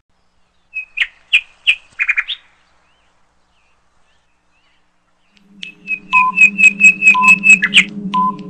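A few short bird chirps, then quiet. About five seconds in, a steady low hum starts with rapid chirping over it and a short beep about once a second, in step with a quiz countdown timer.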